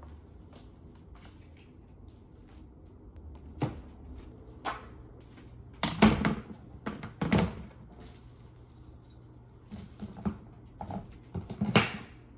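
A clear plastic storage bin is handled and closed, giving irregular hollow plastic knocks and clatters as the lid goes on, loudest about halfway through. Near the end come sharp clicks as its plastic latches are pressed shut.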